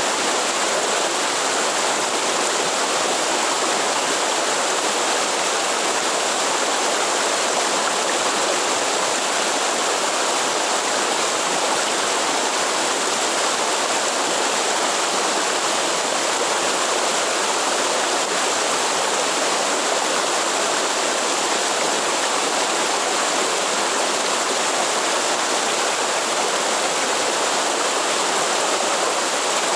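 Waterfall water falling and rushing steadily, an even, unbroken splashing hiss with no change in level.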